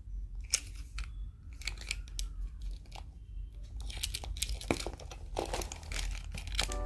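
Close-up handling of a clear plastic pencil pouch: crinkling and rustling of the plastic, with irregular sharp clicks and clinks from keychains knocking together as they are picked up.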